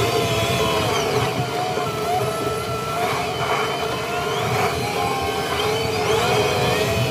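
John Deere 6R 155 tractor heard from inside its cab while driving, engine running with a steady whine whose pitch shifts slightly up and down.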